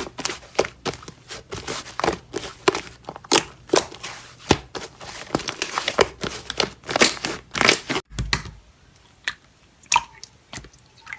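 Slime being pressed and squeezed by hand, a dense run of crunchy crackles and pops that thins out to a few scattered clicks about eight seconds in.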